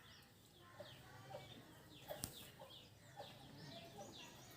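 Faint bird calls: many short chirps, several a second, with one sharp click about two seconds in.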